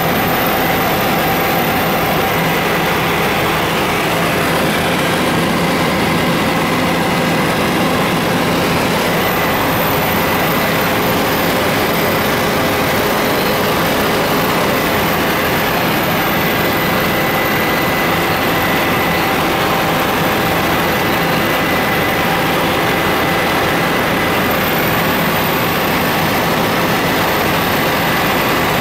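Helicopter cabin noise in flight: the steady drone of the engine and rotor, with a thin constant whine over it.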